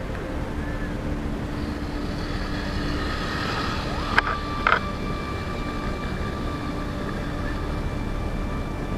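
A small engine running steadily, with two sharp clicks about half a second apart a little past the middle.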